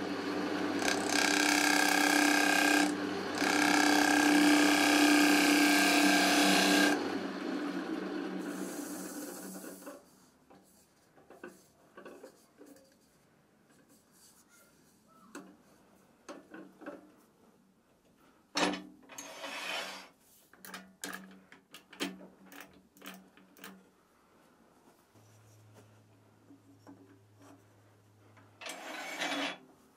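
A gouge cutting ash wood spinning on a wood lathe: a steady rasping shear cut over the lathe motor's hum. About seven seconds in it stops, and the lathe winds down. The rest is mostly quiet, with scattered knocks and clicks from handling the work and the chuck, and a louder burst of noise twice.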